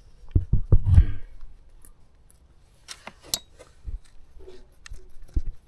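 Handling noise as hands work a rubber intake hose onto a pitbike carburettor: a quick run of soft knocks and rubbing in the first second, then a few sharp clicks and light thumps.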